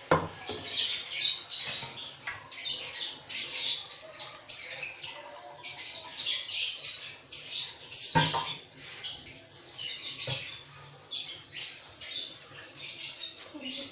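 Small birds chirping over and over in the background, with a few sharp knocks of kitchen utensils, one right at the start and two more about eight and ten seconds in.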